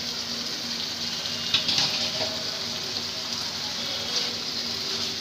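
Spiced sauce with potato wedges sizzling steadily in a non-stick frying pan, with a few light taps of a spatula as the potatoes are turned. The potatoes are about half cooked.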